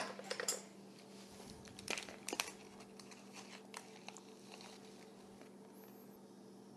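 Plastic smoked-salmon packaging being handled: a few crinkles and clicks, a cluster at the start and another about two seconds in, then fainter ticks, over a steady low hum.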